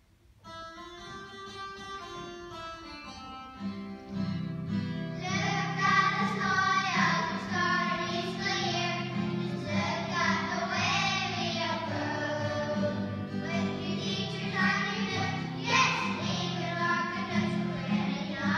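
A class of young children singing a song together over an instrumental accompaniment. The accompaniment starts alone and the children's voices come in about four seconds in.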